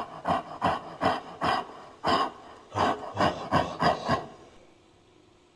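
Gorilla-like creature sound effect: a rhythmic series of about a dozen breathy ape grunts, two to three a second, stopping about four seconds in.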